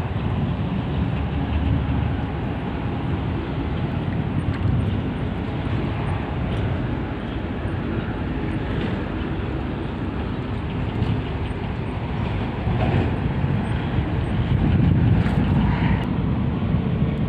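Wind buffeting the microphone outdoors: a steady, uneven low rumble that swells a little louder near the end.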